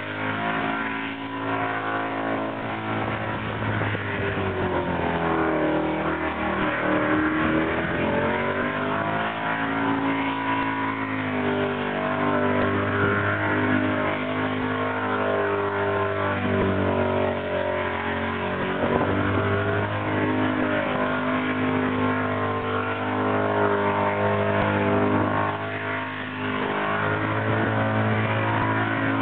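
Holden wagon's engine revving hard and held at high revs through a burnout. The revs sag and climb back several times, with a dip near the end.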